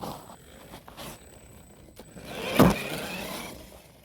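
Electric motor of an FTX Outlaw RC car whining in short throttle bursts, the loudest a rising whine with a sharp peak about two and a half seconds in; the battery is running low, so the car jerks under full throttle.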